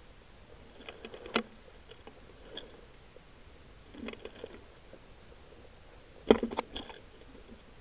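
Dry forest litter (pine needles, leaves, twigs) crackling and crunching in four short bursts as the scope-mounted camera and rifle are moved low over the ground. A sharper knock a little past six seconds in is the loudest sound.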